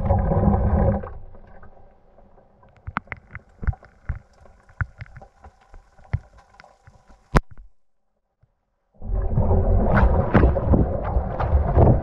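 Gorenje WA 65205 washing machine drum tumbling water and suds, heard from inside the drum. The sloshing dies away about a second in as the drum pauses, leaving scattered drips and small clicks, then a sharp click and a moment of near silence. The sloshing starts up again about three seconds before the end.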